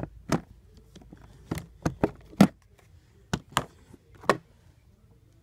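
Handling noise from old mobile phones being picked up, moved and set down: about eight sharp, irregular plastic clicks and knocks, dying away after about four and a half seconds.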